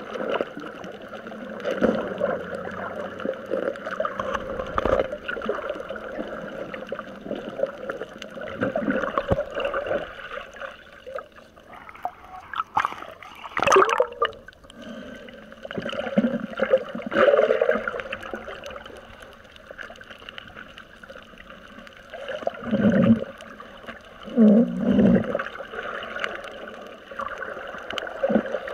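Water sloshing and gurgling just below the surface, with a sharp splash about halfway through and two louder gurgles near the end.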